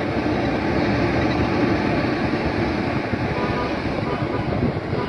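Kenworth W900L tractor-trailer's Caterpillar C15 Acert diesel engine running steadily, a dense deep rumble as the truck hauls a bulldozer.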